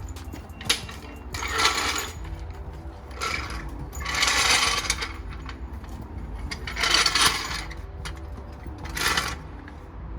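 Background music, with five short bursts of rasping noise one to two seconds apart.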